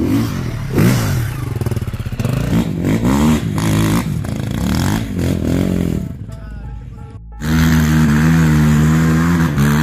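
Dirt bike engines revving up and down in quick throttle blips as the bikes climb, fading briefly, then a quad's engine coming in loud and held at steady high revs about seven seconds in.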